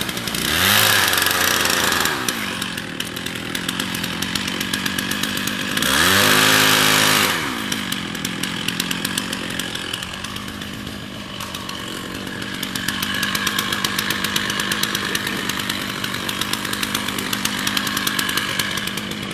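Two-stroke chainsaw running at the trunk of a dying oak. Its engine speeds up and drops back twice, near the start and again about six seconds in, and keeps running at lower speed between.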